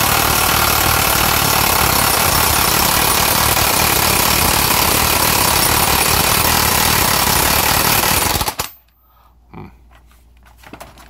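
Electric impact wrench hammering steadily on the 1-1/4 inch output-shaft flange nut of a Tremec TR3650 transmission. It stops suddenly near the end without having broken the nut loose. A few faint knocks of handling follow.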